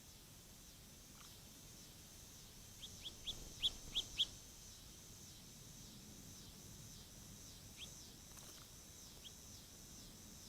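House finch giving short, sharp chirps: a quick run of six about three to four seconds in, then two single chirps later. A steady, pulsing insect chorus runs high in the background.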